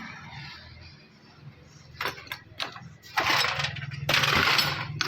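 Workshop work on a diesel injection pump: three sharp clicks about two seconds in, then loud bursts of hissing noise, each under a second long, over a low steady hum.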